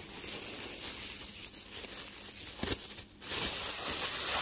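Plastic bubble wrap and a plastic bag crinkling and rustling as wrapped items are handled and pulled out of a packed cardboard box, louder near the end.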